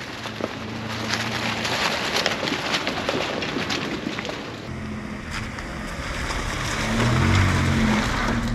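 Chevrolet Colorado ZR2 pickup driving slowly along a rough dirt trail: its engine running, with tyres crackling over dirt and dry leaves. About halfway through the sound changes, and the engine grows louder near the end as the truck rolls through mud.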